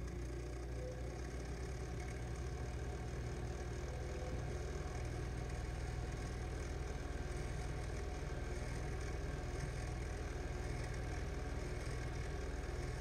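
Steady low hum with a light hiss from a switched-on keyboard and amplifier rig, before any notes are played.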